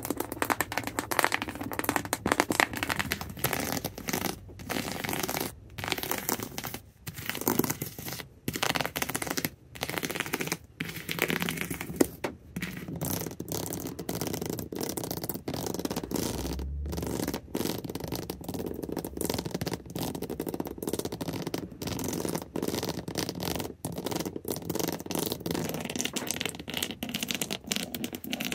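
Backs of fingernails scratching and tapping rapidly over an object, a dense crackly run of strokes broken by brief pauses.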